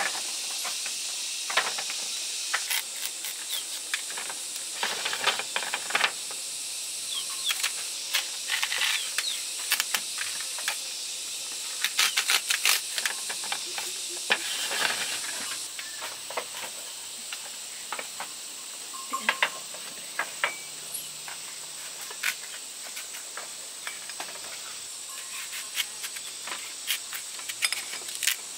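Steady high-pitched drone of insects, with many irregular sharp clicks and rustles that are busiest in the first half and thin out later.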